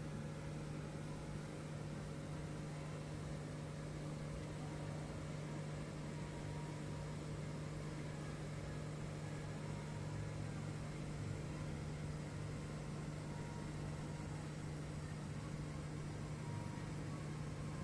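Marantz SD-3030 cassette deck playing a stretch of tape with no music on it: a steady low hum under an even hiss.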